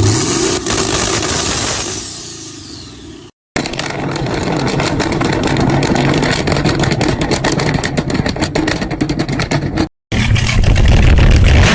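Chevrolet Camaro V8 exhaust revving, heard in three short cuts. The first rev dies away after about two seconds, and the long middle stretch is full of rapid crackling over the engine note.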